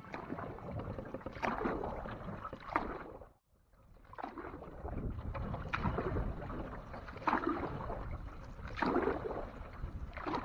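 Canoe paddle strokes splashing and pulling through water, a surge about every second and a half. The sound breaks off briefly about three and a half seconds in.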